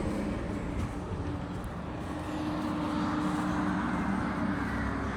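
Steady hum of vehicle engine and tyre noise from road traffic, swelling slightly in the middle as a vehicle goes by.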